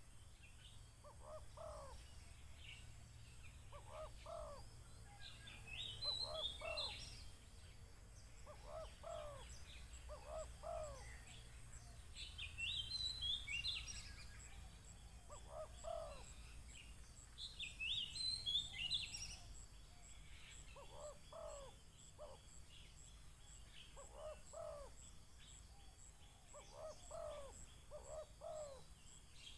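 Spotted doves cooing: short, falling coo notes in pairs and small groups, repeated over and over. A louder, higher chattering call from another bird breaks in three times.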